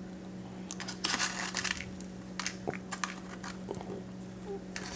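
Biting into and chewing a piña colada truffle topped with toasted coconut, heard as irregular clusters of soft crackles and clicks. A steady low hum runs underneath.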